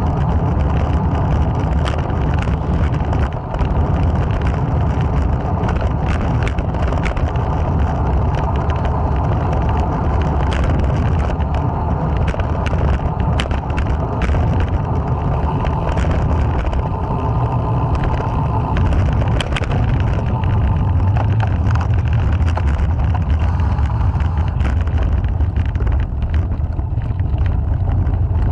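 Wind buffeting the microphone of a camera mounted on a moving road bicycle, a steady heavy rumble, with road noise and many small clicks and rattles from the bike going over the road surface.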